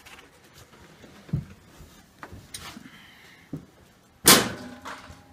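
A few light knocks and bumps, then one loud bang about four seconds in that fades quickly.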